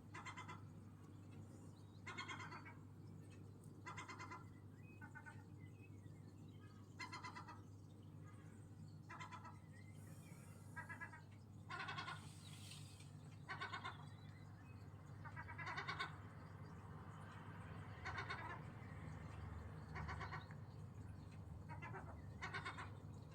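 Gulls calling: a run of about fourteen short, pitched calls, one every second or two, over a steady low hum.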